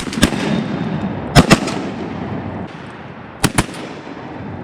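Shotgun volley from several duck hunters: about six shots in three quick pairs, at the start, about a second and a half in, and about three and a half seconds in, each followed by a long echo.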